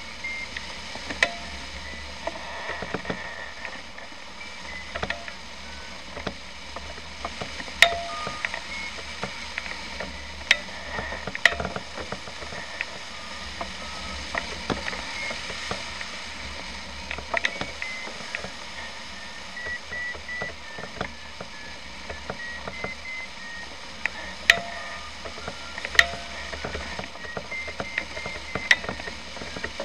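Short electronic beeps that keep stepping up and down in pitch, typical of a flight variometer signalling climb and sink, over a steady rush of noise with scattered sharp clicks.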